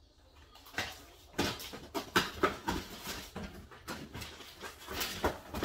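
Small cardboard medicine boxes and plastic packages knocking and rustling as they are handled and packed into a cardboard carton: a string of short, irregular knocks with rustling between them.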